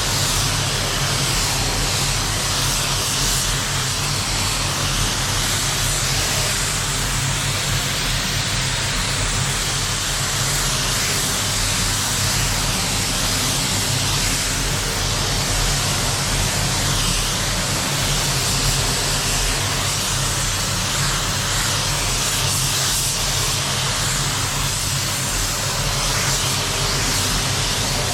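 Steady hiss of a paint spray gun laying on base coat, over a low, even hum of running air equipment.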